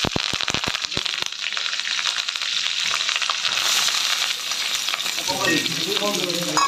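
Hot oil sizzling and spluttering in an iron kadai as green chillies and chopped onion fry in a tempering of spice seeds and dried red chilli. Sharp pops and crackles come in the first second, then a steady, loud sizzle that grows brighter about halfway through.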